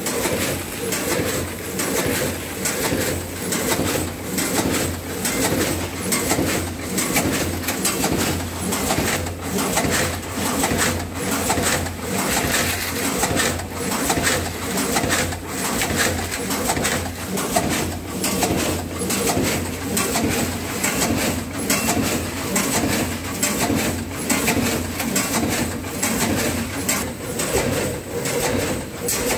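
Weigher-fed vertical pouch packing machine running, cycling with regular clacks over a steady hum as it forms, fills and seals pouches one after another.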